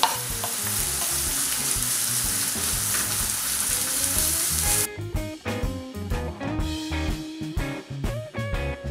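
Grated carrot, onion and garlic sizzling as they fry in oil in a frying pan, stirred with a wooden spatula. The sizzling cuts off sharply about five seconds in, leaving background music with a steady beat, which also runs under the frying.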